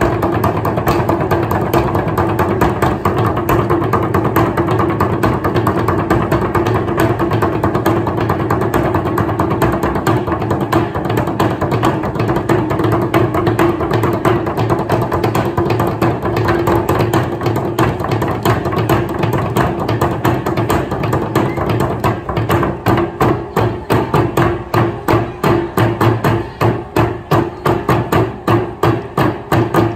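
Water drums: several drummers beating sticks on water-covered steel barrel drums, splashing as they strike, in fast dense rhythms over a steady pitched note. In the last several seconds the playing changes to loud unison strokes about twice a second.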